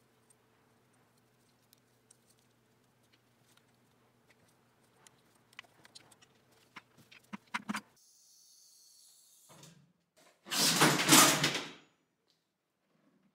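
Small clicks and taps of brass quick-connect fittings, thread tape and an adjustable wrench being handled, growing denser over several seconds. Near the end comes a loud burst of noise lasting about a second and a half.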